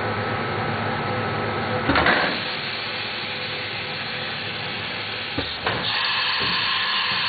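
Heian 5-axis CNC router running: a steady machine hum and hiss, with a louder surge about two seconds in. Two short knocks come near the end, then a brighter hiss as the head moves.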